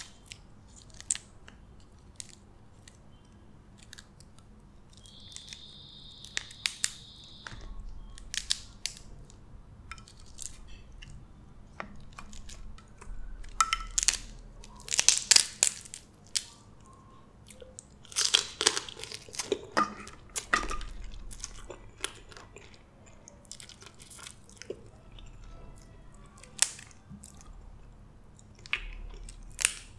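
Blue crab shell being cracked and pulled apart by hand, with sharp crunching snaps coming in clusters, mixed with close chewing of the crab meat.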